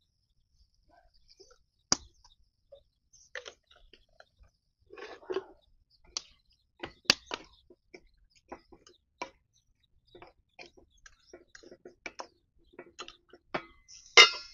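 A wooden spatula knocking and scraping against a metal kadai in irregular clicks as thick pork curry is stirred. Near the end a stainless steel lid clanks onto the pan, the loudest sound.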